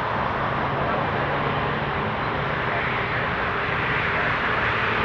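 Airbus A340-600's four Rolls-Royce Trent 500 turbofan engines running as the airliner taxis and turns onto the runway: a steady jet rumble and hiss, growing slightly louder near the end.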